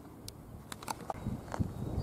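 Outdoor ambience: wind rumbling on the microphone, growing louder near the end, with a few scattered sharp clicks.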